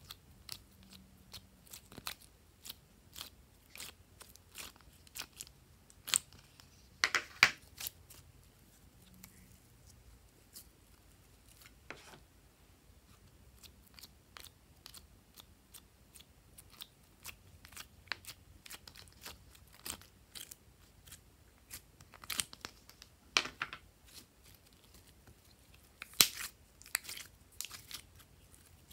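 Slime being pushed out of the cells of a plastic ice cube tray and squeezed by hand: many small sticky clicks and crackles, with a few louder crackling bursts now and then.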